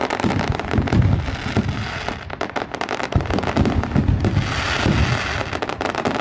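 Aerial fireworks going off in quick succession: a dense run of crackling and popping over repeated deep booms from the bursting shells.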